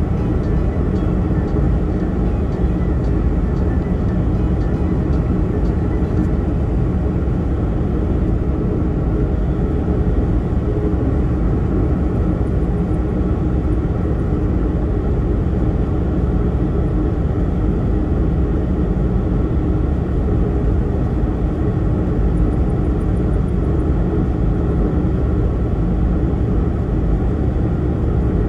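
Steady road noise of a car driving at speed through a road tunnel, heard from inside the car: a constant low rumble of tyres and engine.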